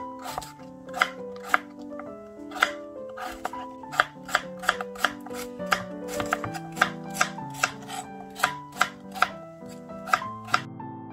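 Kitchen knife chopping Korean radish into square chunks on a plastic cutting board: sharp knocks of the blade striking the board, two or three a second, over background music.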